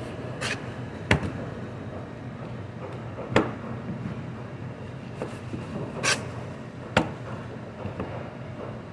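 A large knife slicing through a beef strip loin and striking a plastic cutting board: about five sharp knocks spread out, with soft rubbing and cutting sounds between them, over a steady low hum.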